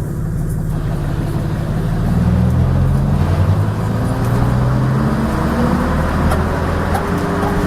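Leyland Atlantean double-decker bus's diesel engine pulling hard under acceleration, its note climbing over the first few seconds, levelling off, then climbing again near the end. A few faint knocks sound over it.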